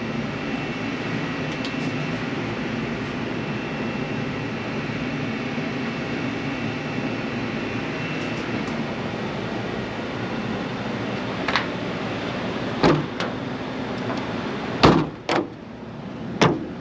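PoolPak rooftop unit's fan running with a failed bearing: a steady mechanical noise with a faint thin whine over it. Near the end come a few sharp knocks, and after the loudest one the running noise turns quieter.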